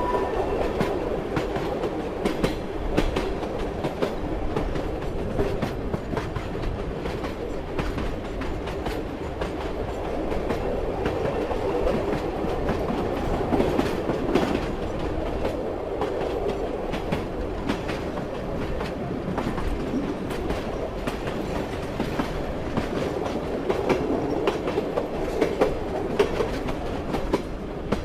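Train running on rails: a steady rumble with the clatter of wheels knocking over the rails.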